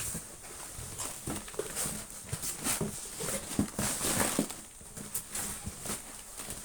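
Wrapped chocolates and their packaging being handled: irregular crinkling, light clicks and taps.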